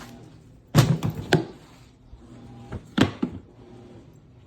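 A few hard knocks and clunks of tool cases and tools being handled, three of them standing out, about a second in, a moment later and near the middle, over a faint steady hum.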